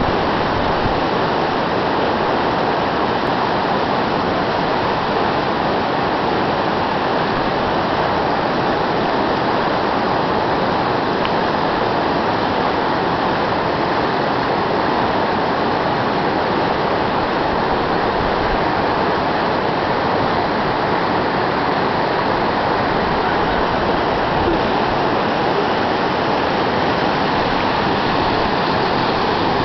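Whitewater rapids below a waterfall rushing and churning in a steady, loud roar.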